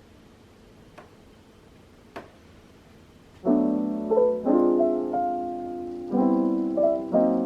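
Near-silent room tone with two light clicks, then lo-fi background piano music begins about halfway through, with repeated chords and a simple melody.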